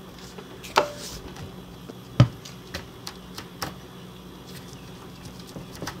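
A few sharp knocks and lighter clicks of a pry bar, a jack stand and a refrigerator's levelling leg being handled at the fridge's base. The loudest knock comes about two seconds in, over a faint steady low hum.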